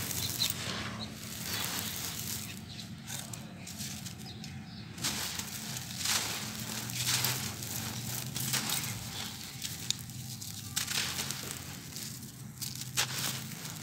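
Dry, powdery sand-cement mix crumbling in the hands: lumps squeezed and broken apart with gritty crunches, and a steady sandy rustle as the powder falls away.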